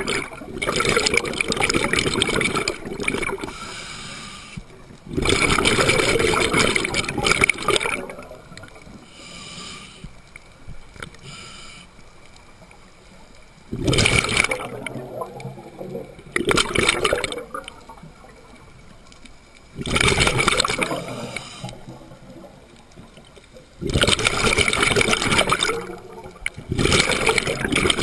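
Scuba diver breathing through a regulator underwater: loud rushes of exhaled bubbles lasting one to three seconds come every few seconds, with quieter inhalations between.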